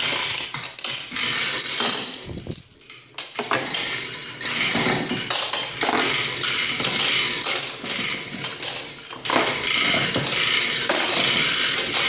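Steel hoist chain rattling and clinking as it runs through the hoist to lower a small ATV, with a short lull about two and a half seconds in.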